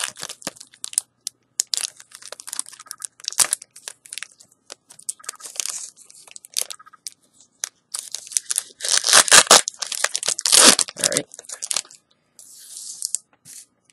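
A crinkly plastic trading-card pack wrapper being torn open and handled: a run of sharp crackles and ripping. The longest and loudest rips come about eight to eleven seconds in.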